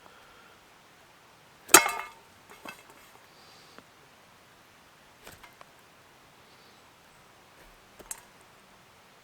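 One sharp clink with a brief ringing, about two seconds in, followed by a few fainter clicks and knocks.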